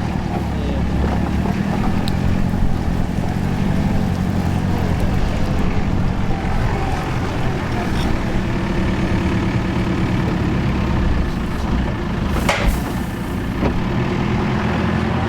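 A John Deere 2130 tractor's diesel engine running steadily under load while it drives a Teagle Tomahawk straw chopper/blower, with the rushing noise of the machine blowing straw. A short, sharp clatter about twelve seconds in.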